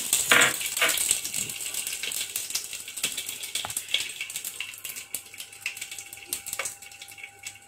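Hot oil crackling and popping in a nonstick pot on a gas stove, with many quick pops that grow sparser and quieter over the seconds; a couple of louder knocks sound in the first second.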